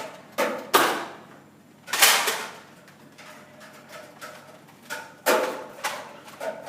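Nerf foam-dart blasters firing: sharp puffs of air, two in quick succession near the start, another about two seconds in and another about five seconds in.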